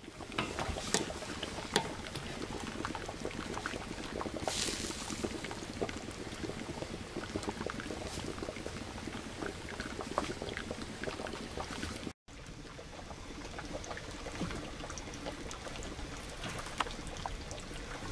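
Maple sap boiling hard in a flat metal evaporator pan over a wood fire: a dense, steady bubbling and popping. It drops out briefly about twelve seconds in.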